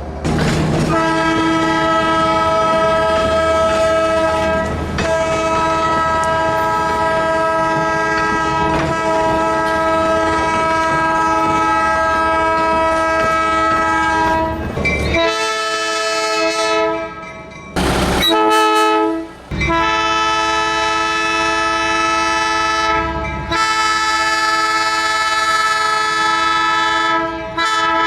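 Locomotive air horn sounding a multi-note chord in long held blasts, broken by a few short gaps, over the low rumble of the passing train.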